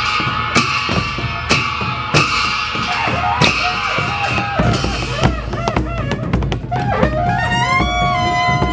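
Traditional temple band music: drum beats, then curved brass horns (ransingha) sounding short swooping notes, and near the end one long held horn note.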